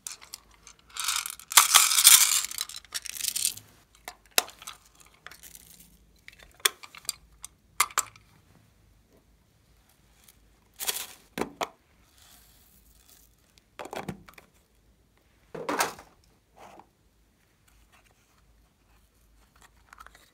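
Hands handling small plastic containers: rustling, scraping and clicking of plastic boxes and lids in short bursts with pauses, the longest and loudest burst about a second in.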